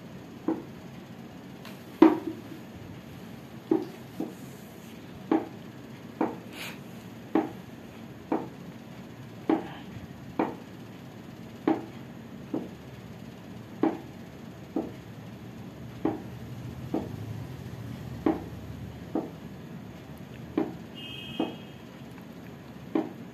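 Short wooden knocks about once a second, slightly uneven, in time with a knee-pressing exercise done with one foot up on a small wooden stool: the stool knocking against the stone floor.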